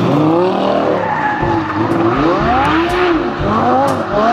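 Lamborghini Gallardo V10 sports car revving as it spins its tyres in donuts. The tyres squeal continuously, the squeal sweeping up and down in pitch over the engine's rumble.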